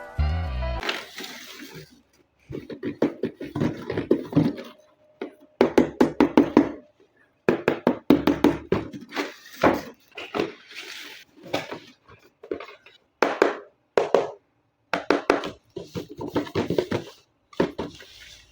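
Hands handling toy packaging and plastic parts: short runs of rapid clicking and rattling knocks with pauses between them.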